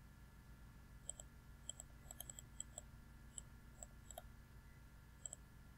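Faint computer mouse clicks, a dozen or so at irregular intervals, several in quick pairs, over a low steady hum.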